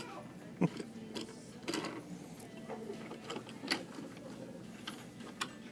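Toy trains and track pieces on a train table clicking and knocking at irregular moments, as they are moved by hand.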